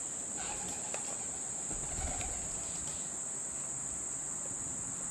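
Steady high-pitched insect chorus, a continuous shrill drone, with a few faint clicks in the first second.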